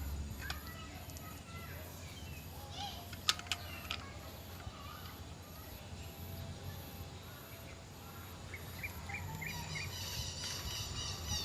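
Outdoor ambience: birds chirping and a faint high insect call pulsing about twice a second. There are a couple of sharp clicks about three seconds in, and a few short chirps followed by a quick rapid trill near the end.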